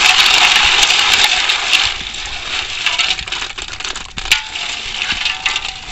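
Freshwater snails being stirred and rubbed by hand in muddy water in an aluminium pot, their shells clattering and clinking against one another and the pot as they are washed before boiling. Louder for the first two seconds, then softer with scattered clicks.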